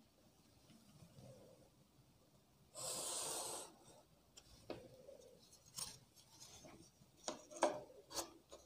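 Marker pen drawn along a ruler on a whiteboard: one stroke lasting nearly a second about three seconds in, then a string of short clicks and knocks as the ruler is shifted and set down and shorter lines are drawn.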